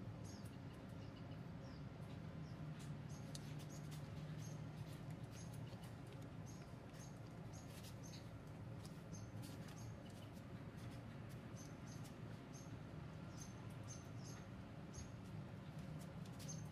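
Hair-cutting scissors snipping hair in quick, irregular runs of short metallic snips, with a faint low hum underneath.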